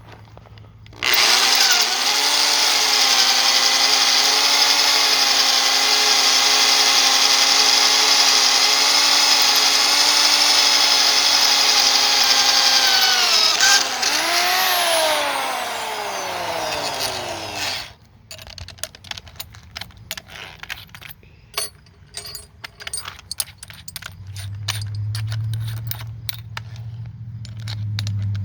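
An electric power tool's motor runs at a steady high speed with a whine for about twelve seconds, then is let off and winds down in pitch over a few seconds. Afterwards come scattered clicks and rattles of metal parts being handled.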